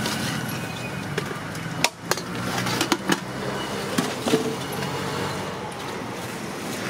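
Roadside street ambience: a steady hum of traffic and background bustle, with a few sharp clicks and knocks about two to four seconds in.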